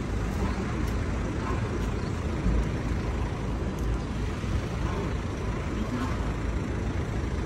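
City street traffic: a steady low rumble of passing cars and buses, with faint voices now and then.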